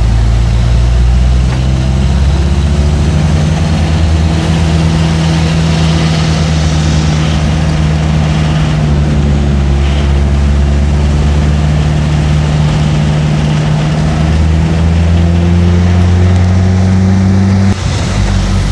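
Truck engine running steadily at a low, even pitch, with a brief drop and change in pitch near the end.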